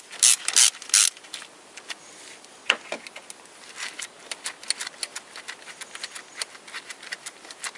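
Ratchet wrench with a 12 mm socket clicking as it loosens a bolt: a few loud clicks in the first second, then a long run of lighter, quicker ticks.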